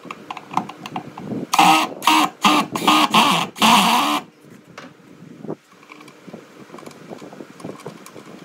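A handheld power tool's motor run in several short trigger bursts over about two and a half seconds, then lower knocking and handling noise.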